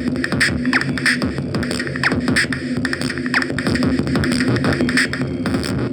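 Electronic music with a dense, fast beat over a held low note.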